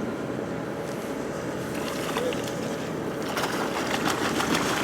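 Fishing boat's engine running steadily under wind and water noise, with a few faint clicks near the end.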